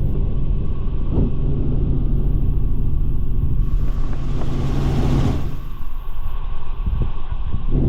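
Helicopter heard from inside the cabin in flight: a loud, steady drone of engine and rotor with a low hum under a wide rush of noise, easing off for a couple of seconds near the end.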